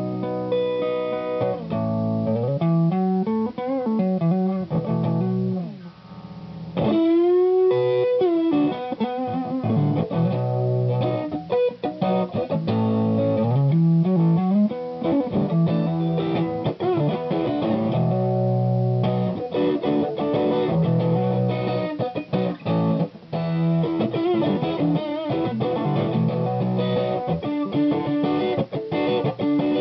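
Electric guitar, a 1966 Fender Custom Shop Stratocaster, played through an Ibanez TS808HW handwired Tube Screamer overdrive pedal into an EL34-based Matchless Independence valve amp. It plays overdriven chords and single-note lines with string bends.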